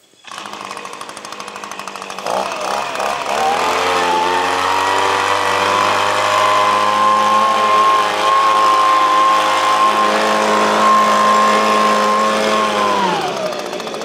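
Handheld gas leaf blower's small two-stroke engine running low at first, revved up to full throttle about two to three seconds in and held there steadily, then throttled back down near the end.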